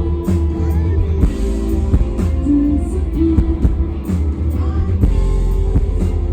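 Rock band playing live: electric guitars, heavy bass and a drum kit, with singing.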